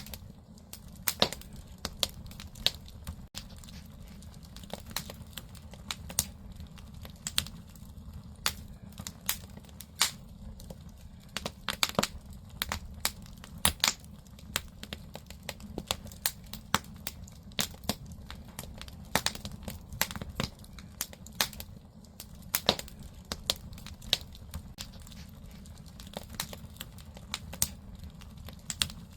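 Firewood burning in a Korean agungi (traditional wood-fired furnace hole): irregular crackles and sharp pops from the burning logs over a steady low rumble of the fire.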